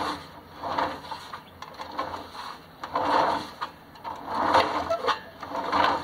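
Homemade concrete mixer running empty, its blue plastic drum turning on a chain-and-sprocket drive. A steady low hum sits under a clicking rattle that swells and fades in an uneven rhythm, about once or twice a second.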